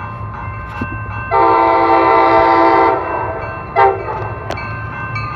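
Horn of an approaching Coaster commuter train sounding the grade-crossing pattern: a long multi-note blast, a short one about a second later, then another long blast right at the end as the train's rumble comes in loud.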